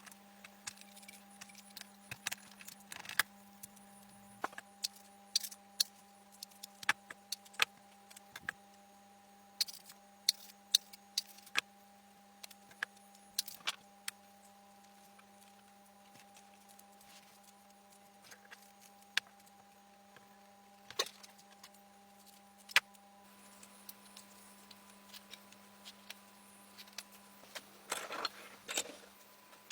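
Irregular sharp clicks and light metallic knocks, as small metal parts and hand tools are picked up, set down and handled, with a cluster near the end. A faint steady hum underneath stops about two-thirds of the way through.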